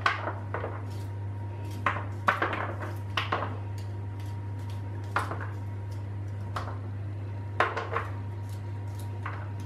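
A dozen or so light, irregular clicks and taps as garlic cloves are sliced by hand with a small knife and the slices drop onto a metal roasting tray. A steady low hum runs underneath.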